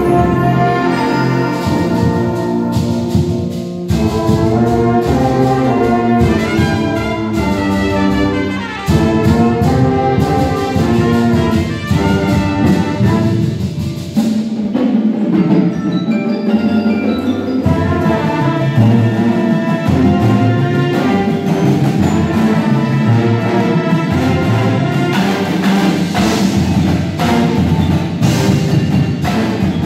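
High school band playing live: massed brass, with sousaphones and trumpets, over drums and mallet percussion, in sustained full chords throughout.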